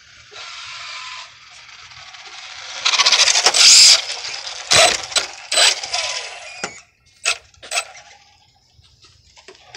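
Electric radio-controlled car's motor whine and tyre hiss rising as it accelerates past close by, loudest about three to four seconds in. Then come several short, sharp throttle bursts as it is driven on gently, fading out after about seven seconds. It keeps popping up on its back wheels under power.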